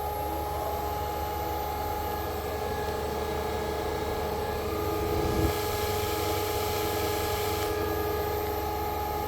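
Karstens OD grinder's grinding-wheel spindle running steadily with a smooth, quiet hum of several steady tones; a further tone joins about halfway through, near a brief low bump.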